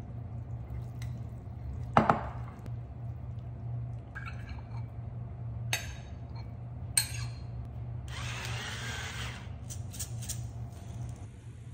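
Utensil and glass mixing bowl knocking and clinking against a ceramic plate as pasta is served, with a sharp knock about two seconds in, the loudest sound. Near the end, a pepper mill grinds black pepper for about a second and a half, followed by a few light clicks. A steady low hum runs underneath.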